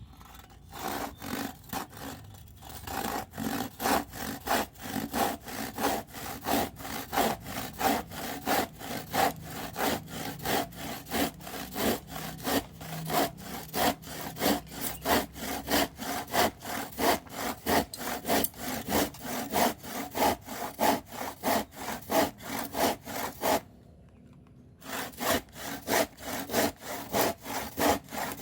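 Kapusi 18-inch crosscut hand saw cutting through a piece of old scrap wood: steady back-and-forth strokes, about two a second, starting with a few lighter strokes. Near the end the sawing stops for about a second, then picks up again at the same pace.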